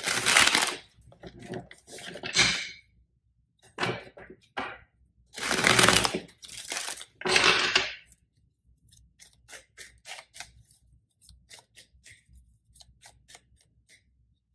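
A deck of tarot cards being shuffled by hand: several loud rushes of sliding card noise in the first eight seconds, then a quicker run of soft card clicks and taps.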